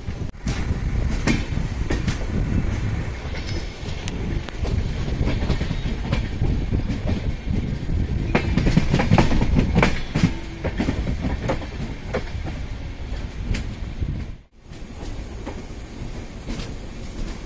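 Antyodaya Express passenger train running at speed: a heavy, steady rumble of the coaches with irregular sharp clacks of the wheels over rail joints. The sound drops out for a moment about three-quarters through, then the rumble carries on.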